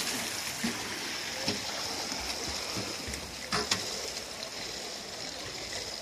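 Pool water splashing and washing as swimmers kick through it after a dive start, with a few short sharp knocks about a second and a half and three and a half seconds in.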